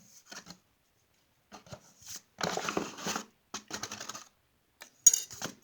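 Spoon scooping flour and tipping it into a bowl: scraping and rustling in several short bursts, with a sharp tap near the end.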